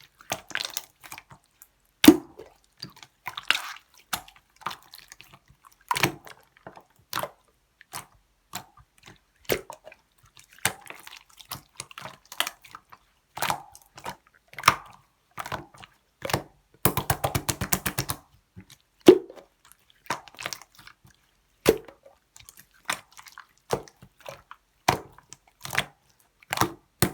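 Clear slime being squeezed, poked and folded by hand, giving wet clicks and pops every second or so. About seventeen seconds in comes a rapid run of clicks lasting about a second.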